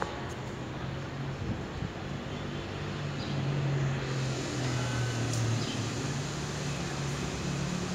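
Steady city traffic noise with a low engine drone, getting a little louder about three seconds in.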